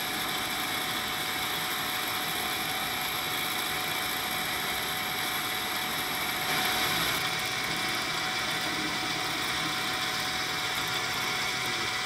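Small metal lathe running steadily with a motor whine, cutting into a spinning aluminium workpiece. The cutting gets a little louder about six and a half seconds in.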